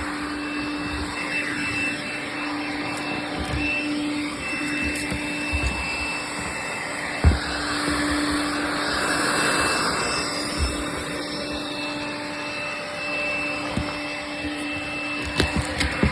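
Vacuum cleaner running steadily with a constant hum and whine, with a sharp knock about seven seconds in and a few more knocks near the end.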